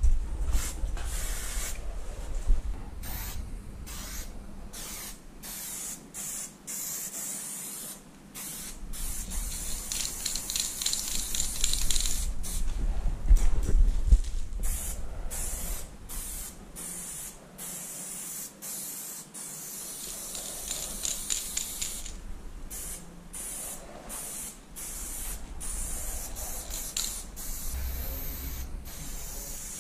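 Aerosol spray paint can hissing as paint is sprayed onto a wall, in short and longer bursts that stop and start many times.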